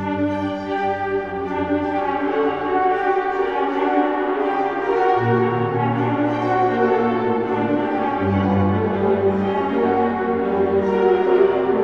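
Orchestral music of slow, sustained notes in brass and bowed strings over low bass notes that shift about five and eight seconds in, an eerie ghostly orchestra sound effect.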